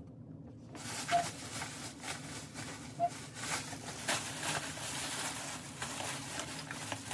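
Plastic bag and foil rustling and crinkling as they are handled, starting about a second in and going on in irregular crackles.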